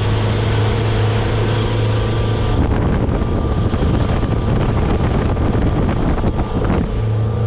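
Motorboat engine running steadily at cruising speed while the boat planes, with wind buffeting the microphone, heavier for a few seconds in the middle.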